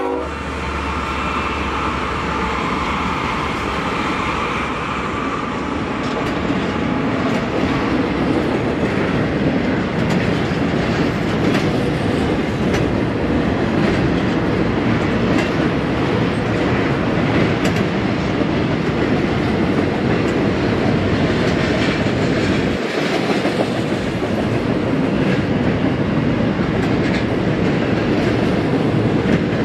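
Double-stack intermodal container train rolling past at speed: a steady rumble of steel wheels on rail with a running clickety-clack as the well-car trucks pass. A low rumble drops away about three-quarters of the way through.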